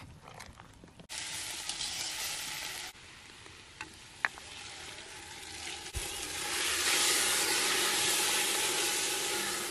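Chopped leafy greens sizzling while they are stirred with a wooden spoon in a cast-iron pot. The steady hiss comes in loud about six seconds in; a shorter burst of it comes about a second in, with a couple of light clicks in the quieter stretch between.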